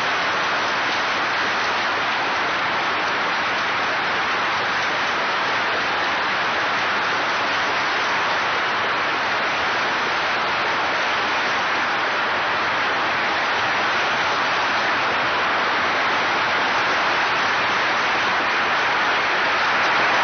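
Long, steady applause from a large audience.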